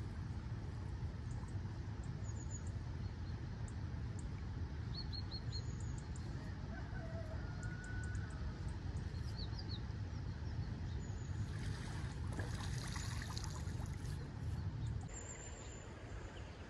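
Outdoor riverbank ambience: a steady low rumble, with short bird chirps and calls scattered through and a brief rush of higher noise about twelve seconds in.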